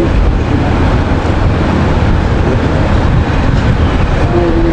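Loud, steady rumbling background noise with no voice over it.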